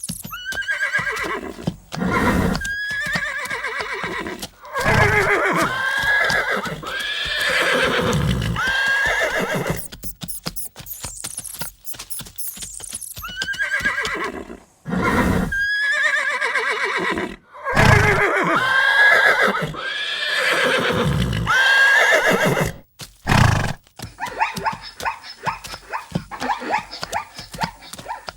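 Horses whinnying again and again, each call a long, quavering neigh that bends in pitch, in two long runs. Near the end they give way to a quick patter of short sounds.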